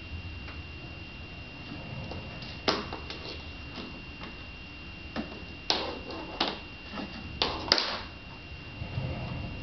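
Scattered light knocks and taps of a plastic TV remote being pushed and bumped across a hardwood floor by a baby's hands, about half a dozen, most of them in the second half. A faint steady high whine runs underneath.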